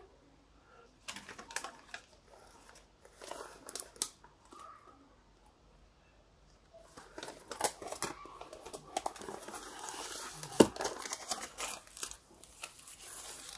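Rustling and crinkling of a vinyl LP's jacket and its plastic outer sleeve as the record is handled and slid back in, with scattered light clicks and taps. The rustling is sparse at first and becomes busier and steadier from about halfway through.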